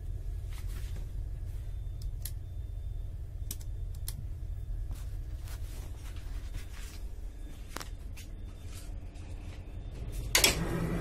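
Steady low rumble inside an Indian Railways Duronto Express passenger coach, with scattered light clicks and one louder knock near the end.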